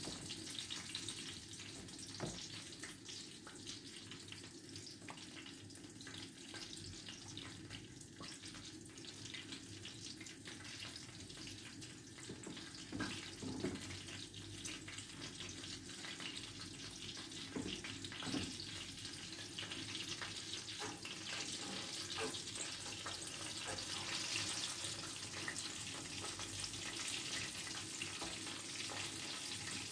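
Breaded chicken schnitzels frying in hot oil in a pan: a steady crackling sizzle, with a few soft knocks around the middle.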